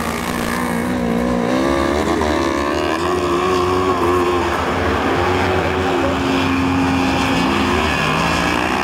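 Several 500 cc kartcross buggies racing, their engines revving up and easing off in turn, with the pitch rising and falling as the machines overlap.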